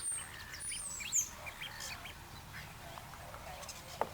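Birds calling: high, thin gliding calls near the start and about a second in, with scattered short chirps throughout, over a low steady background rumble. A sharp click comes near the end.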